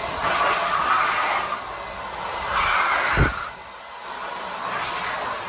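Air rushing steadily through a handheld hose nozzle, swelling and dipping as a puppy mouths at it, with a single knock a little over three seconds in.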